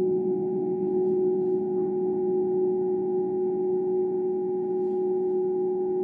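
Ambient music: a single steady drone tone with faint overtones, held without change of pitch or loudness.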